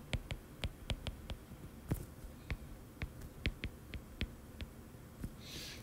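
Stylus tip tapping and clicking on a tablet's glass screen while handwriting, a string of short, irregular clicks of varying strength.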